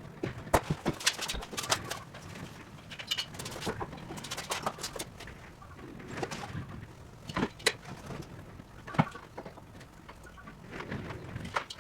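Irregular sharp clicks and knocks, several louder single knocks among them: objects being handled during work.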